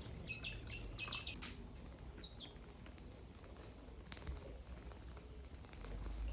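Small birds chirping faintly in short calls, a cluster in the first second and a couple more about two seconds in, with faint scattered ticks and pattering.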